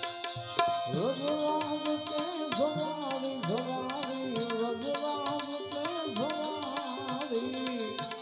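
Devotional bhajan: a man sings long, wavering held notes to a harmonium drone, with a hand-drum rhythm under it. The voice comes in about a second in, over the harmonium already sounding.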